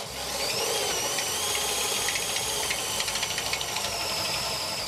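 Electric hand drill boring into a steel angle bracket, its motor whining steadily under load, the pitch rising over the first second and then holding.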